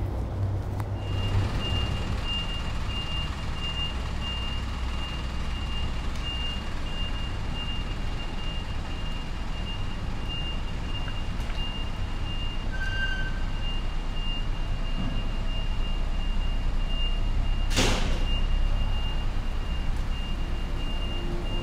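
Alley ambience: a steady low rumble of air-conditioning units and traffic, with a vehicle's reversing alarm beeping in a steady high-pitched series. A brief loud whoosh comes near the end.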